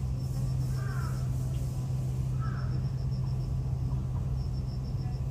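A steady low hum runs throughout. Over it, an insect chirps in short bursts of rapid high pulses, and two brief bird calls come about a second and two and a half seconds in.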